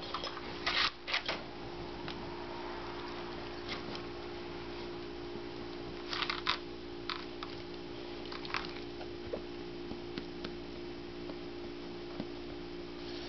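A four-month-old pit bull–Rottweiler mix puppy snoring in his sleep: a few short, noisy snorts at uneven intervals, near the start and again around six to eight seconds in, over a steady low hum.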